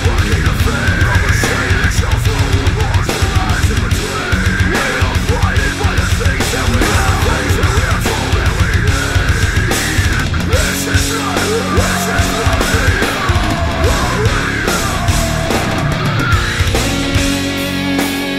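Loud heavy metal music with fast, dense drumming; near the end it changes to steady held chords.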